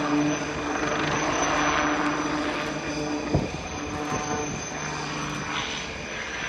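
HAL Light Utility Helicopter in low flight, its single Ardiden 1U turboshaft and rotors giving a steady drone. There is one sharp click a little over three seconds in.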